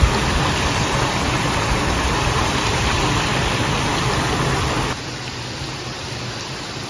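Steady rushing of a stream flowing over a small concrete weir. It drops suddenly to a quieter flow about five seconds in.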